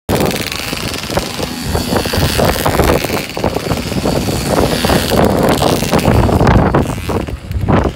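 Polini 4.2 minimoto's small two-stroke engine buzzing, its revs rising and falling as the pocket bike is ridden through tight turns.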